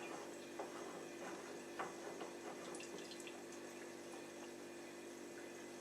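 Faint, light metallic clicks and ticks, about half a dozen in the first three seconds or so, as the tap's loosened headgear is unscrewed, over a steady low hum of room tone.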